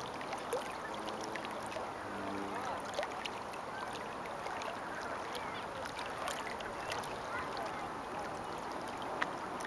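Small waves lapping and gurgling against shoreline rocks: a steady wash of water with many scattered little splashes and ticks.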